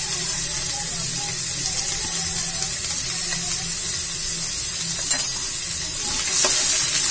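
Diced onions and dried red chillies sizzling steadily in hot oil in an aluminium kadai. A little after five seconds a metal ladle clicks against the pan and then scrapes as it stirs the onions.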